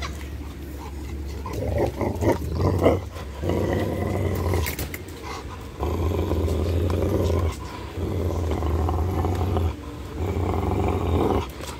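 Rottweiler growling in play while tugging on a rubber ball toy: long, low growls, about four of them, each a second or two long with short breaks between.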